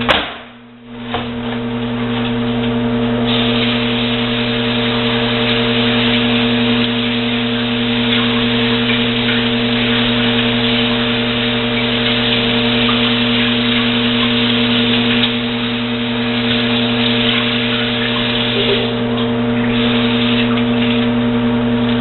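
A kitchen tap runs in a steady rushing hiss from about three seconds in, briefly easing twice, as the ceramic Stonewave cooker is washed out. Under it, a microwave oven runs with a steady low hum.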